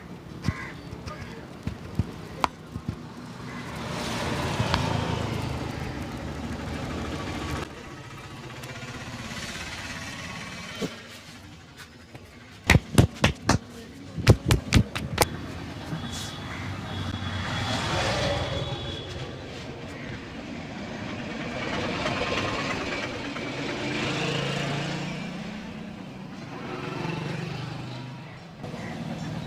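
Street traffic passing in waves, vehicles rising and fading several times, with a quick run of about ten loud, sharp smacks about halfway through.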